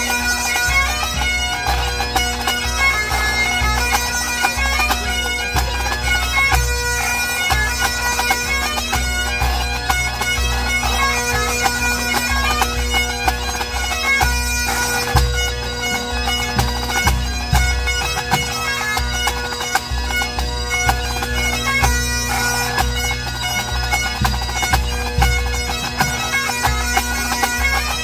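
Full pipe band playing a medley: Highland bagpipes carry the melody over steady droning, with snare, tenor and bass drums beating underneath.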